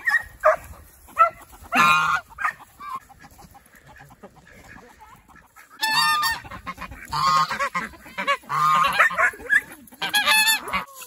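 Geese honking in several bouts. The longest and loudest run of honks comes from about six to ten seconds in.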